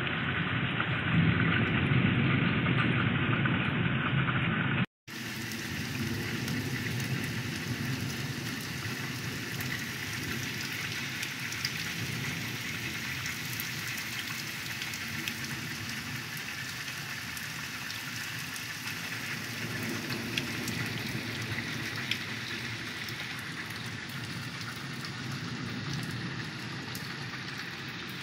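Heavy rain falling steadily on waterlogged fields: a dense, even hiss flecked with the ticks of single drops. For the first few seconds it is duller, louder and mixed with a low rumble, then the sound cuts out for an instant and resumes as a brighter, steadier hiss.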